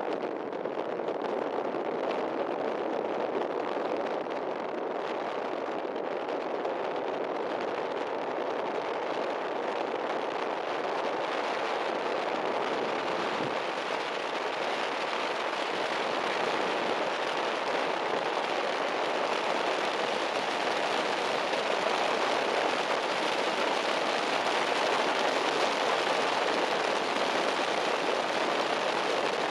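Jeep Speed desert race car being driven over dirt: engine, tyres and wind blend into one steady rushing noise with no clear engine note, growing slightly louder toward the end.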